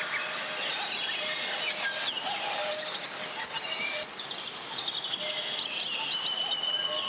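Mountain valley stream flowing steadily, with clear high whistled notes held and stepping in pitch over the rush of water.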